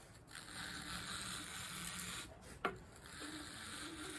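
Desert ironwood handle block hand-sanded on sandpaper over a flat plate: two long rasping strokes, with a sharp click between them. The front face of the handle is being trued flat for a gap-free fit against the knife.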